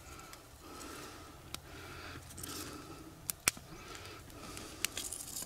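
Thin split kindling sticks clicking and tapping as they are laid by hand over a small kindling flame: a few sharp, light clicks spread out over a faint background hush.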